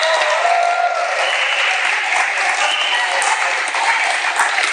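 Clapping and cheering from the volleyball spectators and team bench in a school gym, a steady spread of claps with shouted voices mixed in.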